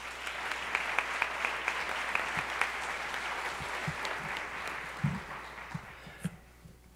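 Audience applauding in a large room. The clapping fades away about six seconds in, with a few low thumps near the end.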